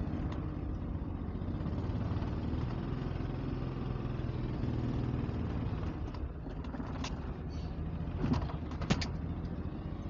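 Suzuki Mehran's small three-cylinder petrol engine running steadily at low revs as the car reverses, heard from inside the cabin. A few sharp clicks come near the end.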